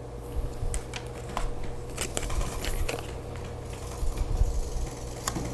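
Cardstock squares being slid and set into a plastic laminating pouch: light rustling of paper and plastic with scattered small clicks and taps as pieces are placed, busiest around the middle.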